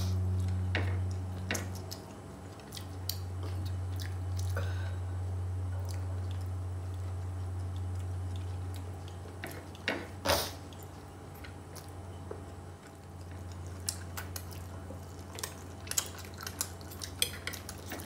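Close-up eating sounds: chewing, with scattered light clicks and clinks of fingers and cutlery on ceramic plates, one louder clink about ten seconds in. A steady low hum runs underneath.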